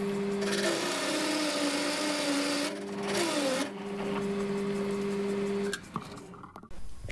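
Metal lathe running with a steady motor hum while a large 1-inch drill bit in the tailstock bores into the spinning workpiece, with a lot of chatter. A loud cutting noise lasts about two seconds, the machine's note dips about three seconds in, and the hum stops near the end.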